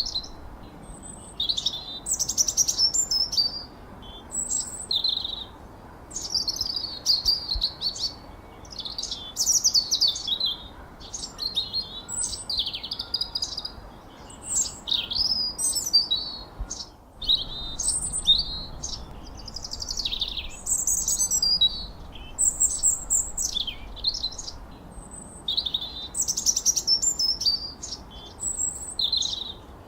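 Songbirds chirping and whistling without pause: quick, overlapping high calls, many sliding down in pitch, over a faint steady hiss.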